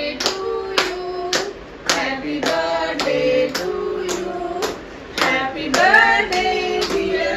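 A small group of people singing a birthday song together, clapping in time at about two claps a second.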